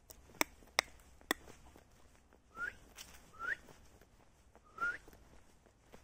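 A person whistling three short notes, each sliding upward, in a beginner's attempt at whistling. Before them come three sharp clicks in the first second or so.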